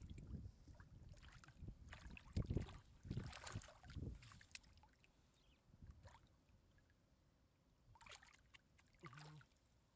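Hands splashing and sloshing in shallow muddy water while groping for fish. The splashes are irregular and heaviest over the first four seconds, then quieter, with another splash about eight seconds in.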